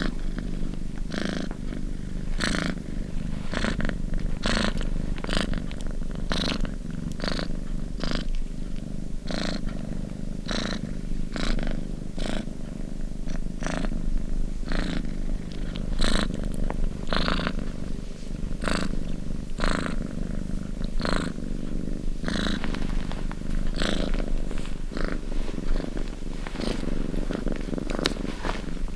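Domestic cat purring steadily close up: a continuous low rumble with a short breathy pulse recurring about once a second.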